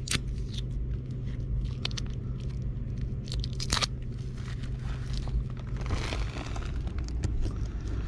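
Foil tape crinkling and crackling with a few sharp clicks as it is handled and pressed over the test holes in an air handler's plenum. A steady low hum runs underneath from the running Trane air handler.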